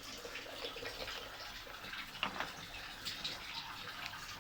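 Squid cooking in a pan: a steady hiss with scattered small pops and clicks.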